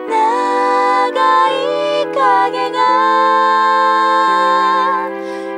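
Slow, gentle background music: a melody that glides up and down over held chords, the chords changing about every second and a half.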